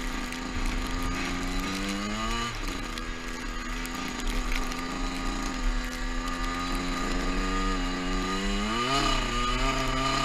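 Small two-stroke dirt bike engine running under way, its pitch climbing sharply as it revs up about two seconds in, dropping back, then revving up again near the end.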